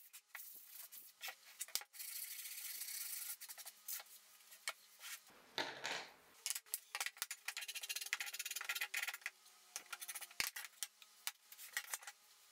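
Hand sanding of birch plywood with a sanding block: scratchy rubbing strokes, a thump about halfway through, then a run of light clicks and taps of wooden pieces being handled.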